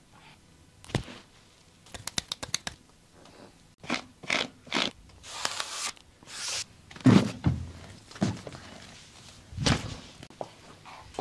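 Joint cracks and handling noises during a chiropractic-style massage: a quick run of about six small pops about two seconds in, scattered knocks, and a heavy thump about seven seconds in, the loudest sound.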